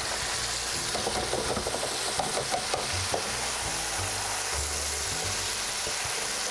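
Coated walleye fillets frying in hot oil: a steady sizzle, nearly done. A few light clicks in the first few seconds.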